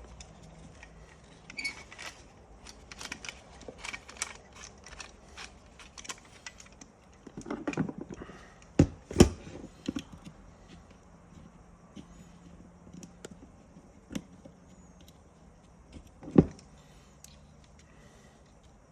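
Small plastic and metal parts of a seatbelt retractor being handled: a string of light clicks and taps, with a few sharper knocks about nine seconds in and again about sixteen seconds in, as the retractor is taken apart again so the belt can be wound back fully before the coil-spring cap is refitted.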